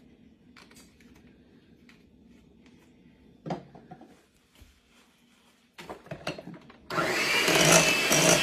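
A few light knocks of utensils and bowl, then an electric mixer switched on near the end, running steadily as it beats a mixture of cream cheese, butter, powdered sugar and vanilla.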